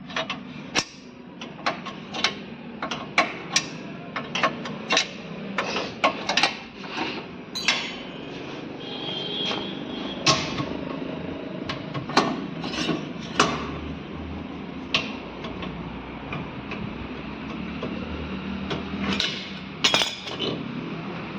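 Hand tools knocking and clinking on the metal of a car's rear drum-brake assembly: a run of sharp, irregular taps, thick at first, then thinning out to a few louder knocks.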